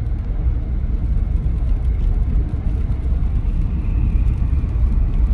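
Steady low rumble inside a small car's cabin: all-terrain tyres running on a snowy, salted highway, with the engine held in second gear, engine-braking down a grade at about 60 km/h.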